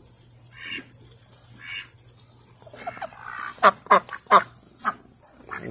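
Domestic ducks quacking: a couple of faint calls first, then a quick run of about five short, loud quacks in the second half.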